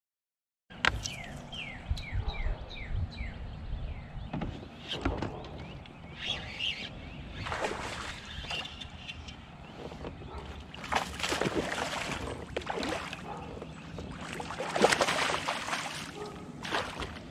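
Water splashing and sloshing around a kayak in irregular bursts, over a low steady rumble. Early on, a bird calls a quick series of about eight short descending notes.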